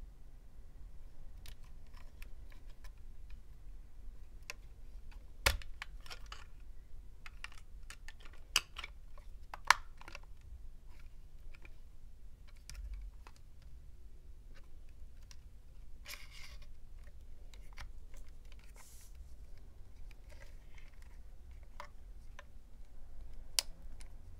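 Scattered light clicks and taps of fingernails handling a miniature plastic auto-scan FM radio, with a few sharper clicks in the middle, over a faint low hum.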